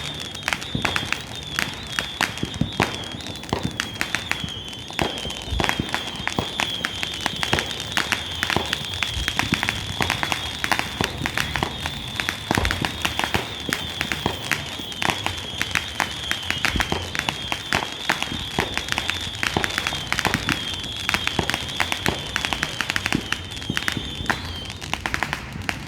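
Fireworks going off in a rapid, continuous barrage of sharp cracks and pops, like a long string of firecrackers, over a steady high wavering tone. All of it cuts off abruptly just before the end.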